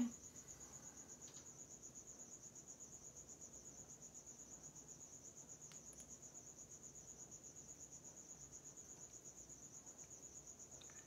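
Near silence with a faint cricket chirping steadily in a high, rapidly pulsing trill, and a couple of faint small ticks.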